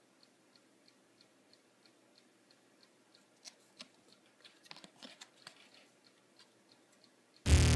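Faint clicks and rustles of a holographic Pokémon trading card being handled and turned over in the fingers, over a faint steady ticking about three times a second. Near the end, loud electronic music with a drum-machine beat starts abruptly.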